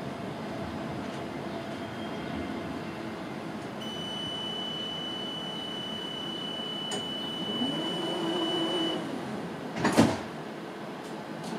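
Inside a tram standing at a stop: a steady background hum, a high steady electronic tone for about five seconds, then one loud sharp thud with a short ring about ten seconds in as the sliding doors shut.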